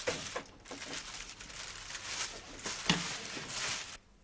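Rustling, scraping noise that rises and falls in strokes, with a sharp knock about three seconds in.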